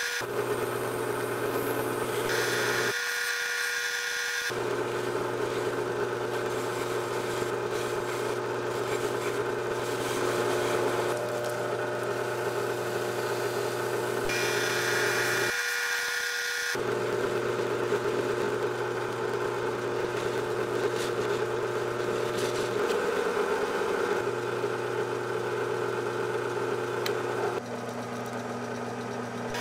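Electric polishing motor spinning a cloth buffing wheel on a tapered spindle, running with a steady hum while a steel watch case and bracelet are buffed against it. The sound changes abruptly a few times.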